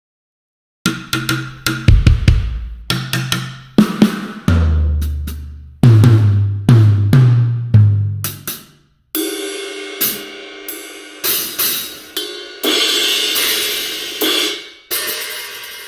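Sampled acoustic drum kit from the Drum Daddy Kontakt library, played one hit at a time with no other music. First come low pitched drum hits, each ringing out. From about nine seconds in, cymbal crashes ring out and fade.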